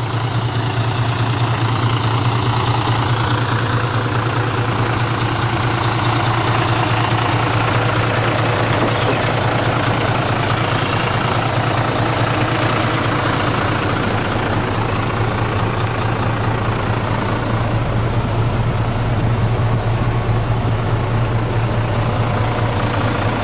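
Diesel engine of a 1998 Mitsubishi Fuso Fighter medium-duty truck idling steadily with a constant low hum.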